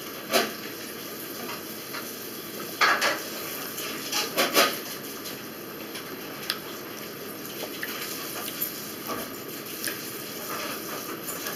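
Metal fork clinking and scraping against a plate of strawberries: a few separate sharp clinks, the loudest about three and four and a half seconds in, over a low steady hiss.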